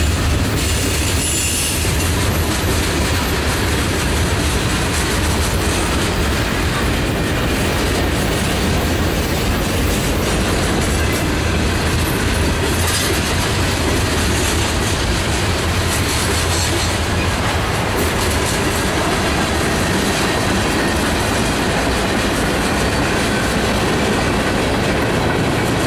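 Freight train cars rolling past at speed: a steady rumble and clatter of steel wheels on the rail, holding at an even level throughout.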